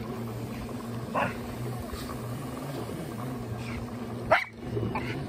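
Four-wheeler engine running steadily while towing a sled over snow, with the hiss of the sled sliding and two short, sharp yelps, one about a second in and a louder one past four seconds.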